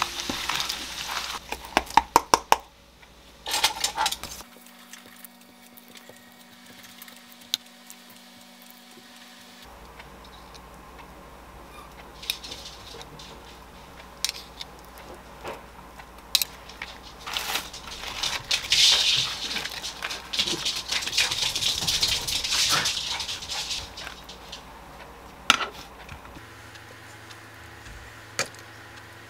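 Hand-assembling gimbap on a wooden cutting board: a spoon scraping and tapping as rice and ssamjang are spread over a sheet of laver, and tongs setting pork belly in place. Scattered sharp taps and clicks, loudest in the first few seconds, and a stretch of soft scraping noise in the second half.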